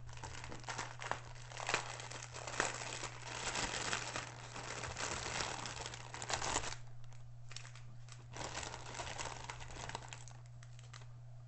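Clear plastic bag of diamond-painting drill packets crinkling as it is opened and rummaged through. The crinkling is dense for about the first seven seconds, then thins to scattered rustles and clicks.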